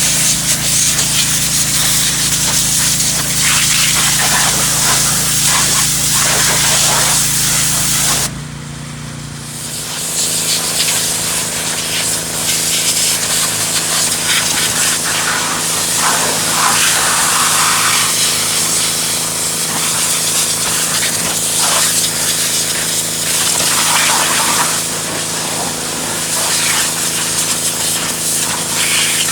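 Pressure washer spraying: a steady hiss of water jet over the drone of the machine's pump. About eight seconds in the spray cuts out for a second or so and the drone changes pitch, then the spraying resumes.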